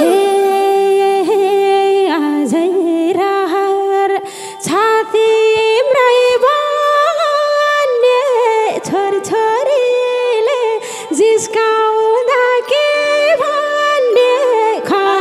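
A woman singing a Nepali dohori verse solo into a microphone, without drums, holding long notes joined by wavering, ornamented slides.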